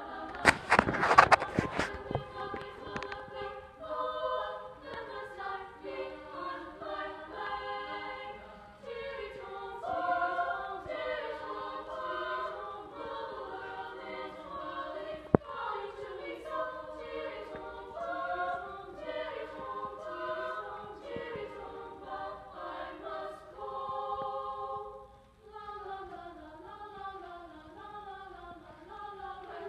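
A girls' choir singing in several-part harmony, unaccompanied. In the first two seconds a cluster of loud, sharp knocks sounds over the singing, and one sharp click comes about halfway through.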